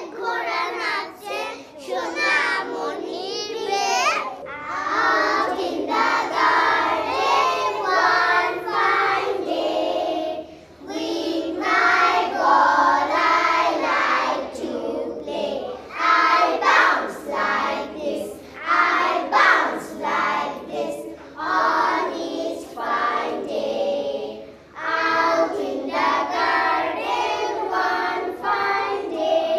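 A group of young children singing a rhyme together in unison, with two brief pauses between verses.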